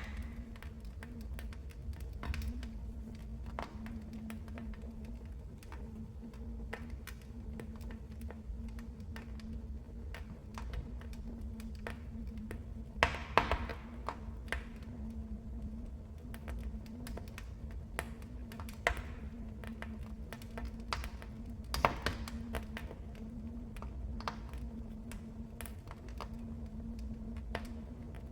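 Wood fire crackling in a fireplace: a steady scatter of small snaps and ticks, with a few louder pops about halfway through and again about three-quarters of the way in, over a low rumble and a faint steady hum.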